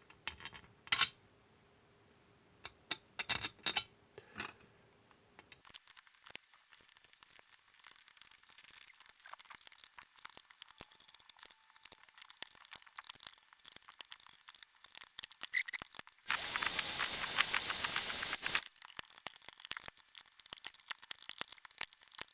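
Small metal clicks and clinks of tools and screws while the halves of a chainsaw crankcase are tightened together, with faint light ticking between them. About sixteen seconds in, a loud steady hiss lasts about two seconds and cuts off.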